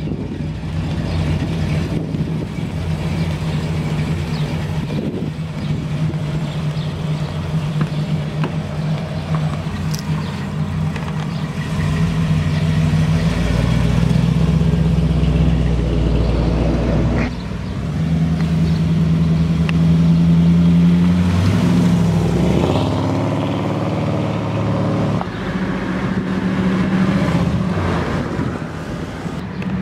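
Car with a 355 cubic-inch Chevrolet V8, ceramic-coated headers and Flowmaster dual exhaust, running steadily at low speed, then pulling away and driving past. The engine gets louder about halfway through, with rising revs under acceleration a little later.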